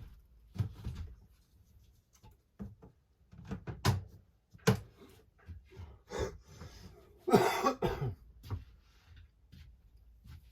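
Glass mason jars being handled, with scattered knocks and clinks, and a person coughing about seven seconds in.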